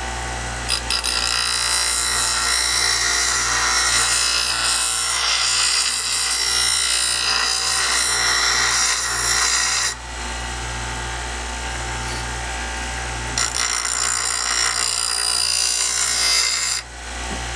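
Ryobi BG612G bench stone grinder running steadily while the jigsaw-cut edge of a ceramic tile is pressed against its stone wheel twice, each pass a harsh grinding rasp over the motor hum. The first pass lasts about nine seconds and the second about three and a half, to straighten the cut edge.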